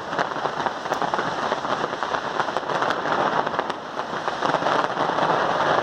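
Fireworks crackling densely: a continuous, rain-like patter of many rapid small pops with no single big bang.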